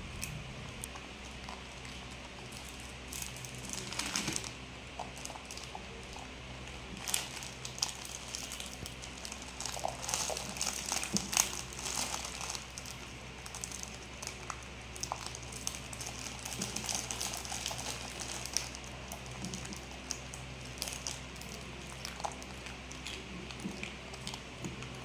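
Plastic instant-noodle packet crinkling and dry uncooked instant noodles crackling as they are handled, broken and nibbled, in irregular bursts, busiest in the middle.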